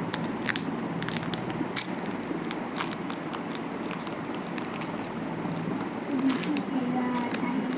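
Pink modelling clay's plastic packet crinkling and crackling in the hands as the clay is worked out of it: a run of short sharp clicks, densest in the first few seconds, over a low steady background hum.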